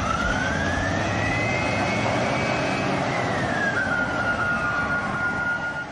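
Engine-like rushing noise with a whine that rises over about two seconds, holds, then falls, starting and cutting off abruptly like an edited-in jet-style whoosh effect.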